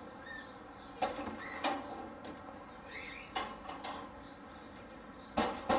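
Small parrots scrabbling on wire cage mesh, making scattered sharp clicks and rattles, with a cluster of louder clicks near the end. A few short, high chirps from small birds.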